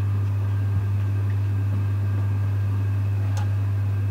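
Loud, steady low electrical hum, with a faint click about a second in and another about three and a half seconds in.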